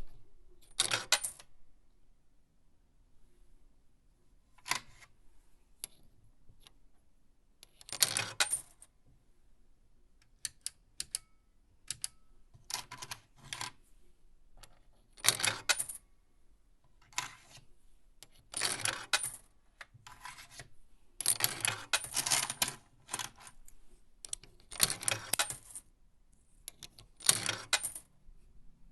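Small metal objects jingling and clinking in short bursts, each under about a second, repeated at irregular gaps of one to three seconds.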